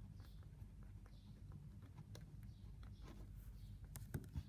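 Quiet room tone with a steady low hum, faint ballpoint pen strokes on paper and faint high chirps about once a second; a few sharper clicks come about four seconds in.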